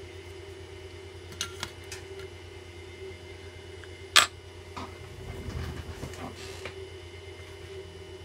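Small clicks and knocks of tools being handled on an electronics workbench over a steady hum, with one sharp click about four seconds in and a second or so of low rumbling handling noise after it.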